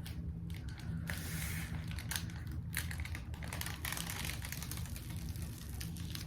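Irregular crinkling and clicking from a diamond painting canvas and its plastic packaging being handled, with short crackles coming in quick runs over a steady low hum.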